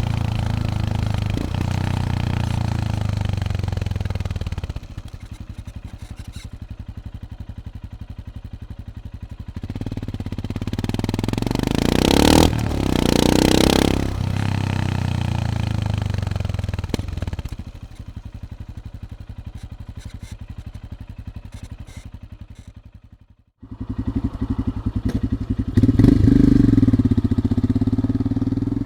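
2020 Royal Enfield Himalayan's 411 cc single-cylinder engine through a Lextek slip-on silencer, heard from a microphone on the bike. It runs under load, drops back to a slow, even beat at low revs, revs up about ten seconds in, then settles back down. After a brief cut near the end, the same bike on its standard exhaust rides past, loudest a couple of seconds after the cut.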